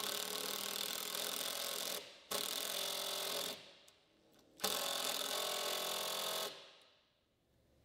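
Cordless drill driving a long wood screw into a board, its motor running in three bursts with short pauses between them, then stopping near the end.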